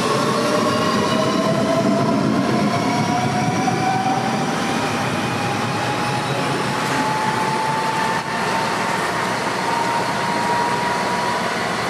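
DB Class 423 S-Bahn electric multiple unit accelerating away from the platform, its traction motors whining in a pitch that rises slowly and steadily over the train's running noise.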